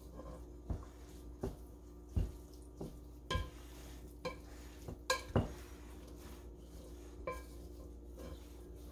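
Wooden spoon stirring moist cornbread dressing in a large glass mixing bowl. The spoon knocks irregularly against the glass about ten times, a few knocks ringing briefly, over the soft scrape of the wet crumbs.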